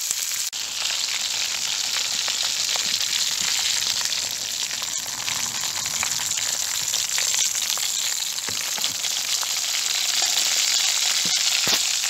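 Bacon and a beef burger sizzling in hot fat in a pan: a dense, steady crackle with a few sharper pops near the end.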